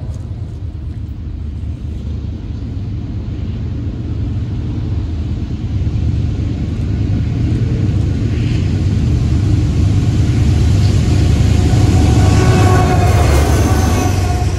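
Norfolk Southern freight train's diesel locomotives approaching: a low engine rumble that builds steadily louder as the lead units draw near and pass close by near the end.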